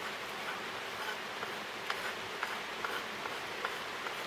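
Steady rain hiss with a scattered handful of light ticks.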